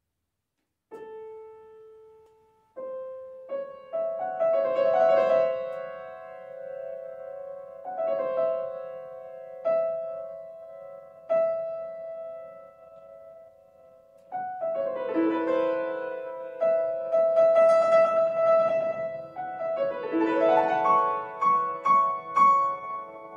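Grand piano played solo: a single soft note about a second in, then slow, separate notes that ring on after each strike. The notes grow denser and louder in the second half.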